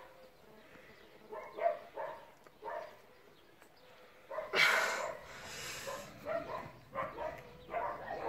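A man grunting and growling with effort as he flexes, in short bursts. About halfway through comes a loud, forceful breath, followed by a run of quicker grunts.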